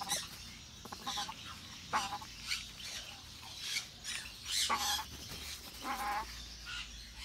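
Young African grey parrot giving short, harsh squawks, about six in the space of a few seconds, as it is held down and restrained.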